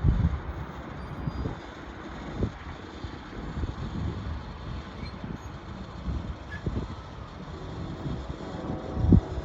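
Low, uneven vehicle rumble with irregular low thumps, the loudest right at the start and about nine seconds in.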